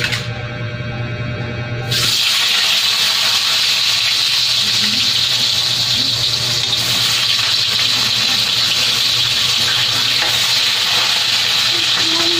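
Food frying in oil in a pan on a gas stove, a steady sizzle that starts suddenly about two seconds in as background music cuts off.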